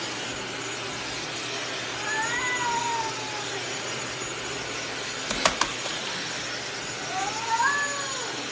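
Domestic cat giving two long, drawn-out meows that rise and fall in pitch, about two seconds in and again near the end. Two sharp clicks come between them, over a steady background hiss.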